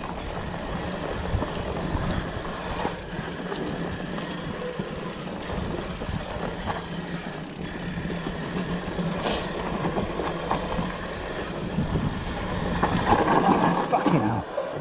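Specialized Turbo Levo electric mountain bike riding down a dirt forest trail: tyres rumbling over the ground with steady rattling and small knocks from the bike, plus wind on the camera. The rumble grows louder over a rougher stretch near the end.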